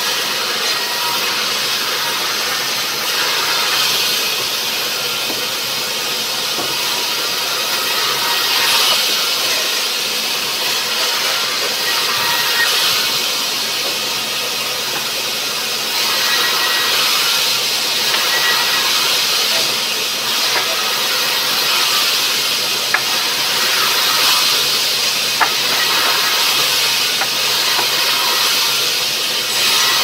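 Vertical sawmill band saw cutting rubberwood: a steady hissing rasp of the blade through the log, swelling at times, with two sharp clicks late on.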